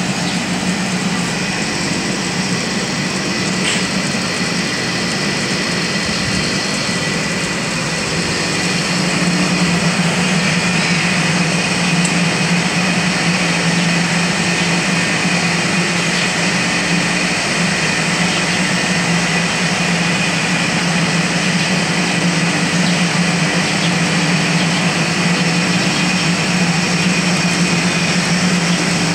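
Steady mechanical drone of a running motor, with a constant low hum and higher whining tones, growing slightly louder about nine seconds in.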